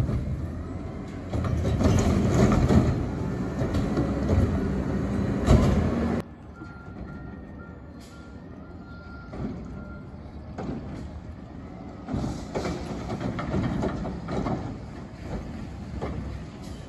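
Autocar ACX garbage truck with a McNeilus Meridian front-loader body working a recycling pickup: engine running hard with hydraulic and clattering noise for about six seconds, which cuts off abruptly. The truck then runs more quietly farther off, with a faint high beeping for a few seconds, and its engine rises again near the end.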